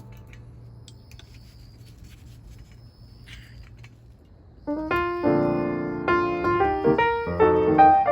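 Quiet for the first few seconds, with only a faint low hum and a few soft ticks; then piano music comes in, a melody of separate notes at two or three notes a second.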